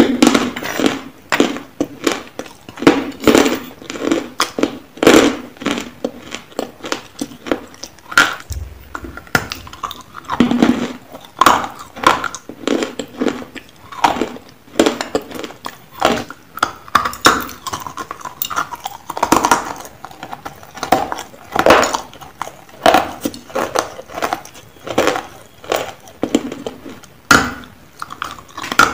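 Close-up crunching and chewing of hard lumps of white edible chalk (nakumatt), with sharp crunches coming irregularly about once or twice a second. A metal spoon clinks against a steel bowl now and then.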